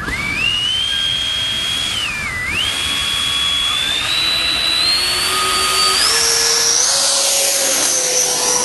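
Twin 120 mm electric ducted fans of a Skymaster A-10 RC jet spooling up on the takeoff run: a loud, high fan whine that climbs in pitch in steps, dips briefly about two seconds in, and is highest from about seven seconds in as the jet comes past.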